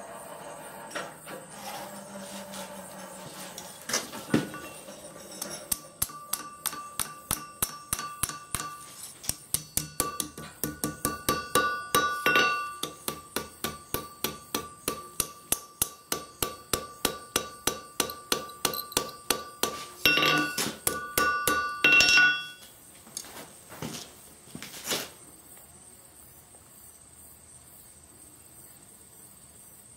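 Hand hammer striking hot steel on an anvil, a steady run of blows about three a second with the anvil ringing, as the end of a flint striker forged from an old file is curled into a scroll. The hammering stops a few seconds before the end.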